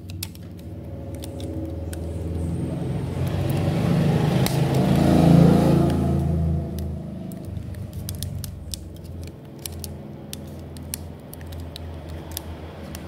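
A motor vehicle's engine hum swells to a peak about five seconds in and then fades away, like a vehicle passing. Small clicks and taps run through it.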